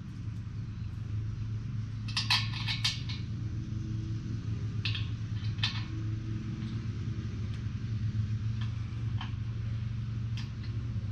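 Clicks and clinks of a plastic wheel and its bolt and nuts being handled and fitted to an air compressor tank, in a short cluster about two seconds in and then scattered. Under it a steady low hum.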